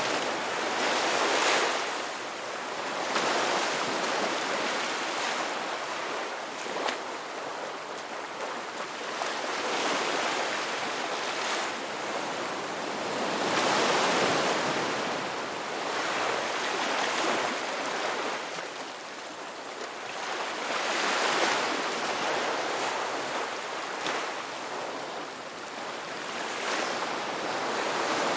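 Ocean waves washing onto a rocky beach, each surge swelling and falling back every few seconds.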